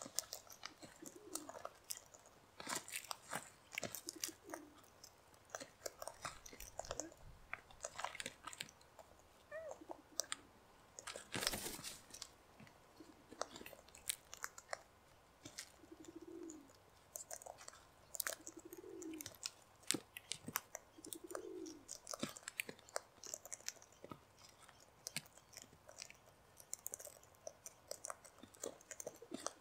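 Sulphur-crested cockatoos cracking and crunching seed in their beaks: an irregular run of sharp cracks and crunches, with one louder burst a little before the middle.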